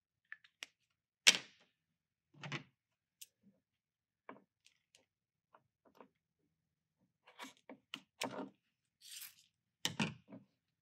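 Handling noises as a rubber tailgate seal is marked with a pen and cut with scissors: scattered sharp clicks, taps and short rustles. The sharpest click comes about a second in, and a cluster of clicks and knocks follows near the end.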